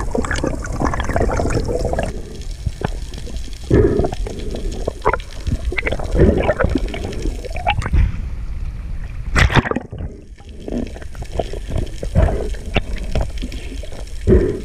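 Water sloshing and gurgling around an underwater action camera, with irregular surges of bubbles and splashes as the freediver moves through the water and breaks the surface; the sharpest splash comes about halfway through.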